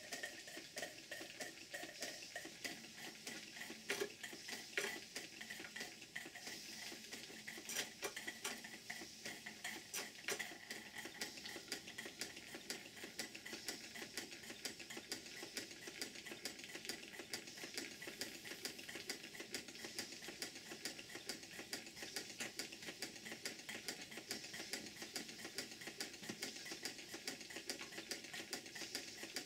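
Two small live-steam model engines, a hypocycloidal engine and a beam engine, running together on steam: a fast, light ticking clatter from the mechanisms and exhaust over a steady hiss of steam.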